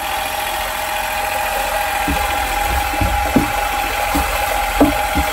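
Motor-driven paddle mixer stirring paint in a tank, running steadily with a constant whine. A few dull knocks come from about two seconds in.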